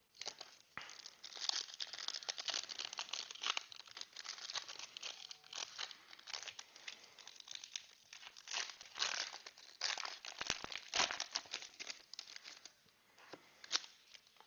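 Foil wrapper of a Donruss Clearly football card pack being torn open and crinkled by hand: a dense crackling in quick, irregular bursts.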